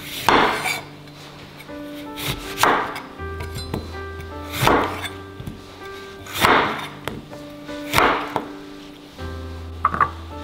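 A santoku knife cutting through a lemon and striking an end-grain wooden chopping board: about five cuts roughly two seconds apart, over steady background music. Near the end, a few light clicks as the lemon wedges are set into a ceramic bowl.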